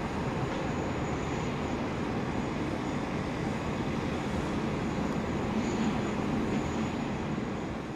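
Boeing 777F's GE90 jet engines at taxi power: a steady rumble with a faint high whine.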